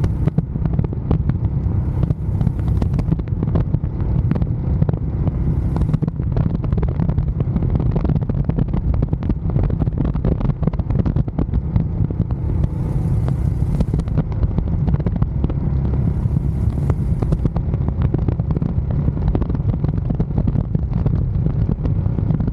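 Royal Enfield Scram 411's single-cylinder engine running at road speed, with wind rushing over the microphone: a steady low rumble, with a few brief hissing swells of wind.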